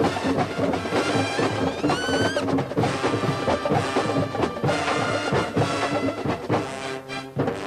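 A drum and bugle corps playing a Latin-style number: a busy drum line of rapid drum and wood-block-like hits under brass, with a high bugle line sweeping upward about two seconds in.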